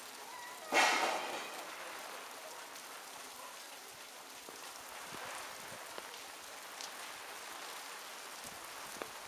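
Steady rain falling on hard surfaces, with a few scattered drips. About a second in, a short louder sound starts sharply and fades away within a second.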